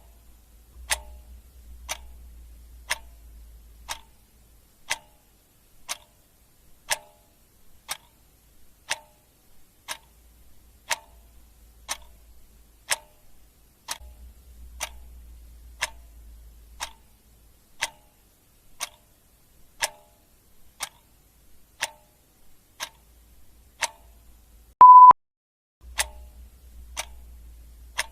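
Clock ticking steadily about once a second, with one short, loud beep near the end.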